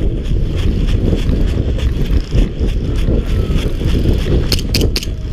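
Wind rumble and jostling on a head-mounted camera's microphone as the wearer runs over leaf litter. Several sharp snaps come close together near the end.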